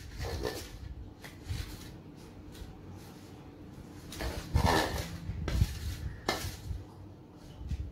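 Metal spoon scraping and clinking against a stainless-steel bowl as marinated prawns are stirred, in short irregular strokes, the loudest about four and a half seconds in.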